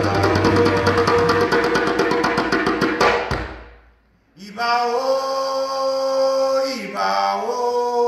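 Djembe hand drums played in a fast roll under chanted singing, ending on a last stroke about three seconds in. After a brief pause, a male voice holds one long chanted note, its pitch shifting slightly near the end.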